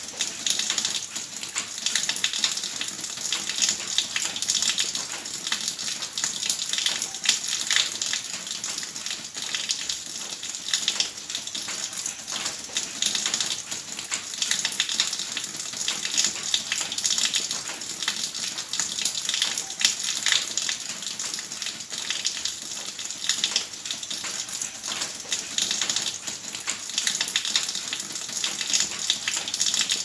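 A stream of water from a spout pouring into a barrel filled to the brim, a steady splashing gush into standing water.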